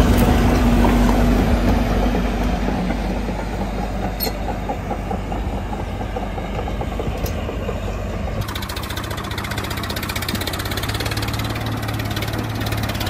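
A machine's motor running. About eight seconds in it changes to a fast, even rattle over a steady low hum.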